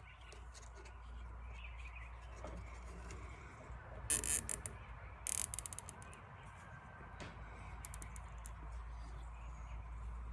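Nylon zip tie being pulled tight through its ratchet: a quick zip about four seconds in, then a rapid run of clicks about a second later.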